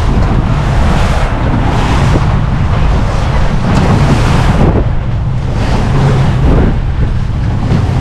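Small boat running at speed through a chop: a steady low engine drone under heavy wind noise on the microphone, with a surge of rushing spray and water every second or two as the hull runs through the waves.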